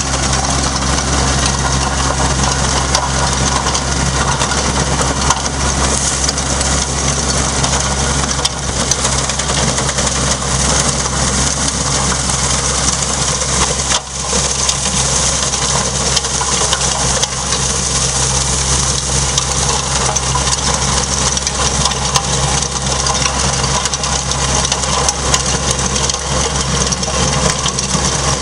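Kubota B2420 compact tractor's three-cylinder diesel engine running steadily under load while its PTO-driven rotary tiller churns hard, dry soil and chops dry coconut fronds, a continuous dense rushing clatter over the engine's hum.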